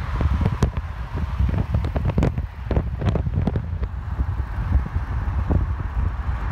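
Wind buffeting the microphone with many short crackles, over the rumble of road and traffic noise from a car driving along a multi-lane road.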